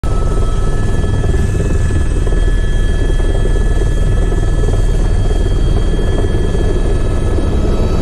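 Helicopter noise heard from inside the cabin: a rapid, steady rotor beat under a constant high turbine whine.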